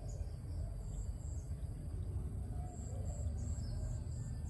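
Crickets and other insects chirping, with steady high-pitched buzzing and short repeated chirps, over a steady low rumble.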